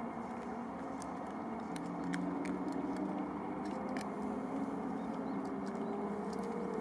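Steady outdoor vehicle rumble with engine tones that slowly rise in pitch through the second half, and a few scattered light clicks.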